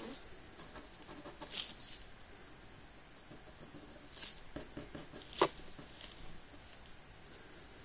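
Ink pen scratching across paper in short, separate strokes, with a sharper tap of the pen on the paper about five and a half seconds in.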